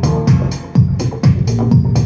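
Music with a steady dance beat: a kick drum about twice a second, with quicker cymbal ticks between.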